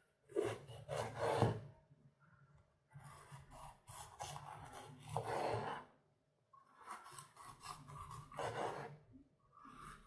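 Small serrated Victorinox tomato knife sawing slices off a red bell pepper, cutting through the skin and flesh down onto a bamboo cutting board, in three spells of slicing with short pauses between.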